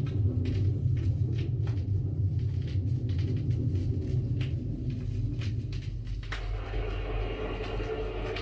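Stylus of a Dual 1218 turntable riding the lead-in groove of a worn 45 rpm vinyl single, heard through the Dual HS 51's speakers: a steady low hum with scattered crackles and pops. About six seconds in, a hiss rises as the music is about to begin.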